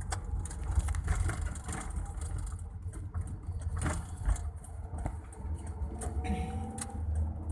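Cabin noise of a car driving on a wet road: a steady low engine and road rumble with scattered light clicks and rattles, and a faint rising tone near the end.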